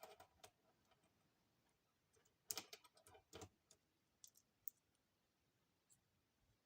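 Faint clicks and taps of a small multi-connector charging cable's metal and plastic connector heads being handled: a few near the start, a louder cluster of clicks about two and a half to three and a half seconds in, then scattered faint ticks.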